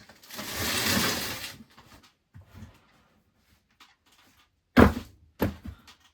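A scraping, rushing noise lasting just over a second, then two sharp thuds a little over half a second apart near the end.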